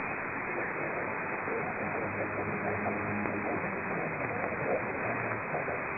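Weak long-distance medium-wave broadcast from Radio Nuevo Tiempo on 1380 kHz, received on a software-defined radio in upper-sideband mode: steady static and hiss with the station's programme audio only faintly showing through. The sound is narrow and muffled, cut off above about 2.5 kHz by the receiver's filter.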